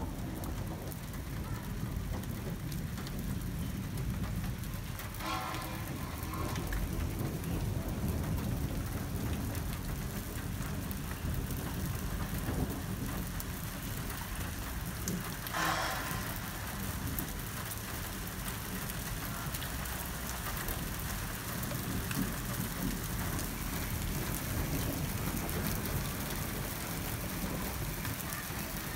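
Steady rain falling on pavement under a low, continuous rumble of thunder. Two brief higher-pitched sounds stand out, about five and fifteen seconds in.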